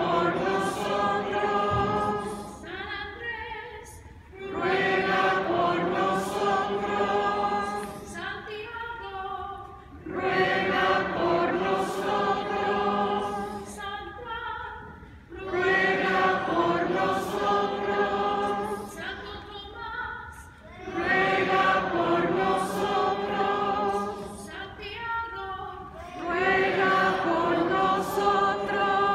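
Choir and congregation singing a hymn together, led by a woman cantor. The singing comes in long phrases of about four seconds with brief, quieter breaks between them.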